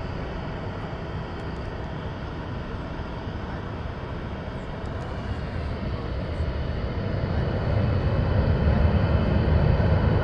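Jet airliner engines rumbling steadily as a Boeing 787 rolls out along the runway after landing, with a faint whine over the rumble. The rumble grows louder from about seven seconds in.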